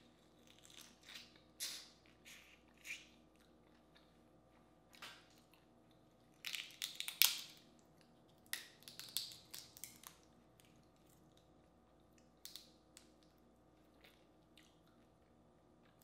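Boiled crawfish being eaten: shells cracked and peeled apart by hand and the meat chewed. These come as scattered sharp crackles, loudest in a dense run of cracking about seven seconds in.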